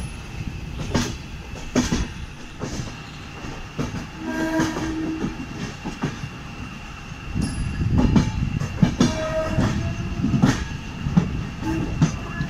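Passenger train rolling slowly into a station, heard from aboard, its wheels knocking irregularly over rail joints and points. A few short pitched tones sound about four and a half and nine seconds in.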